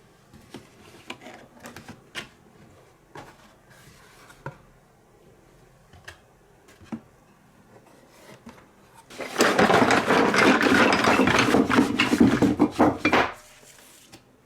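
Glass marbles clicking and knocking on a wooden marble run, single sharp taps every half second to a second. About nine seconds in, a loud dense rattle of marbles rolling fast along the wooden track lasts about four seconds and then cuts off.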